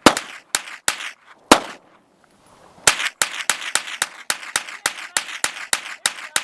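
Rifle gunfire: four shots spaced half a second or more apart, then from about three seconds in a rapid string of shots at about four a second.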